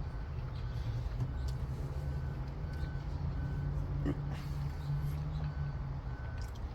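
A vehicle's reversing alarm beeping steadily, about one and a half beeps a second, over a low steady engine rumble. A short knock about four seconds in.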